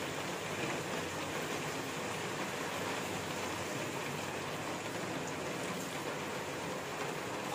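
Steady hissing sizzle from a pan of masala-coated boiled potatoes on the heat, as water is poured in from a glass cup.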